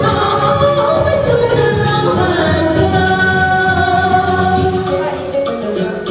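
A song with a singing voice over full instrumental backing, playing steadily with held melody notes.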